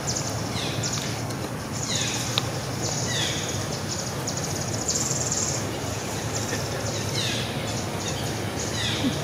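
Outdoor ambience of calling insects and birds: high, buzzy calls each lasting under a second, repeating about once a second, with short falling chirps between them.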